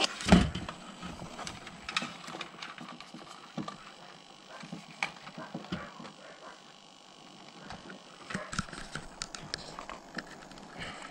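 Scattered clicks and knocks of equipment and cables being handled, with one loud knock just after the start and a quicker run of clicks about eight seconds in.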